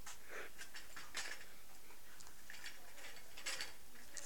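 Scattered light clicks and taps of a plastic toy grabber's claw being worked, over a steady hiss.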